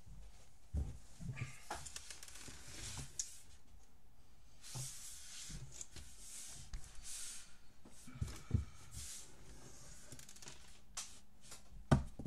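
Quiet handling noises: scattered light knocks and scraping rustles as a plastic Lego Technic car model is moved and turned on a wooden tabletop, with a sharper knock near the end.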